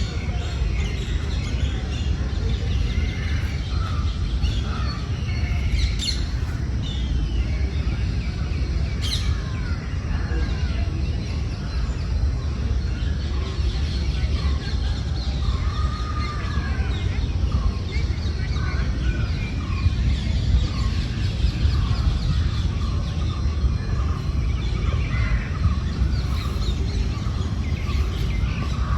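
Many birds chirping and calling in short, overlapping notes, over a steady low rumble.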